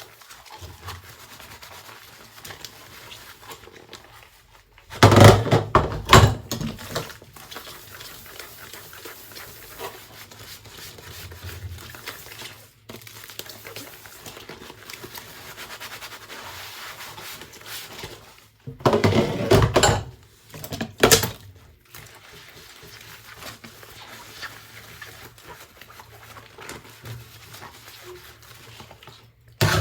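Washing dishes by hand: quiet scrubbing and handling of dishes, broken by three loud noisy spells, one about five seconds in and two close together around twenty seconds in.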